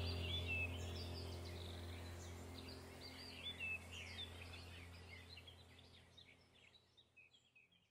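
Background soundtrack of birds chirping over a steady low drone, fading out gradually toward the end.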